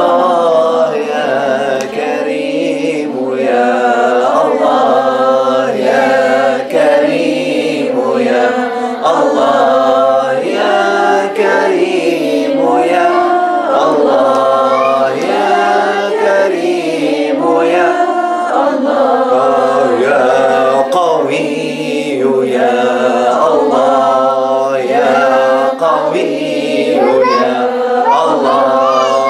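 Small group of men and women chanting Islamic dhikr together, unaccompanied voices singing a melodic line with held notes.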